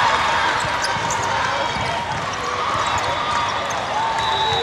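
Volleyballs being struck and bouncing on indoor courts, echoing in a large hall, over a steady hubbub of spectators' voices, with a few short squeaks.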